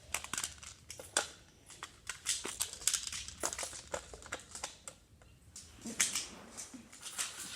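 Plastic magnetic building tiles clicking and clattering as they are picked from a pile and snapped together: a quick, irregular run of sharp clicks, thinning out for a moment just after halfway.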